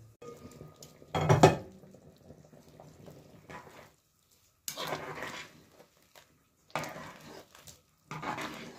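Aluminium cooking pot and metal spoon clattering: one loud clank about a second in, then three short bursts of the spoon scraping and stirring through boiling soup in the pot.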